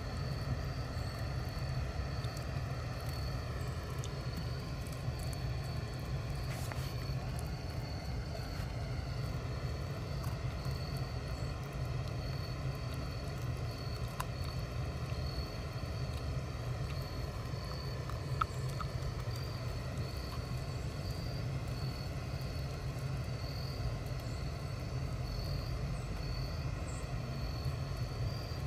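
Steady low rumble of background noise, with a faint, steady high whine above it and a few faint clicks.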